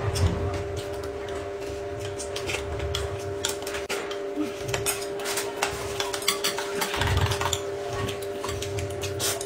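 Eating at a table: many small clicks of chopsticks and a spoon against plates, a noodle bowl and a glass, with chewing, over a steady low hum.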